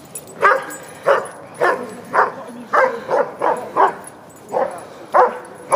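A dog barking over and over, about a dozen sharp barks roughly two a second, starting about half a second in.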